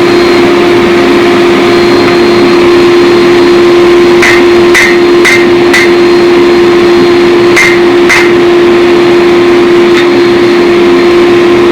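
Six hammer blows on steel during forging of a 4142 chromoly tomahawk: four quick strikes about a second apart, a short pause, then two more. Under them runs a loud, steady hum with one constant tone.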